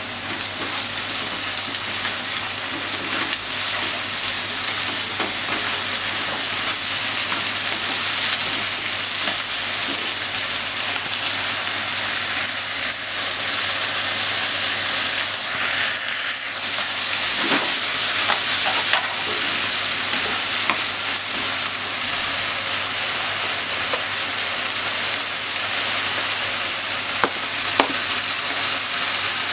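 Diced chicken, onion and sweetcorn sizzling steadily in oil in a nonstick frying pan as they are stir-fried with a spatula, with a few light knocks of the spatula against the pan.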